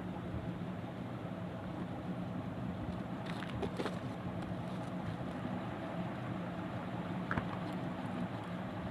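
Steady background noise with a low hum, broken by a few short clicks and crackles about three and a half seconds in and one more click near the end.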